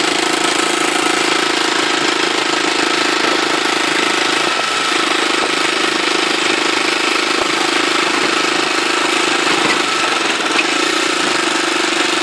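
Motorcycle engine of a motorcycle-and-sidecar tricycle running steadily under way on a dirt road, heard from on board.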